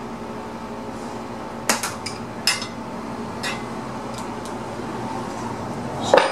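Wrenches clinking against metal while the valve lash is set on a Briggs & Stratton Intek V-twin's rocker-arm adjuster: a few sharp clicks in the first half and a louder clink near the end, over a steady low hum.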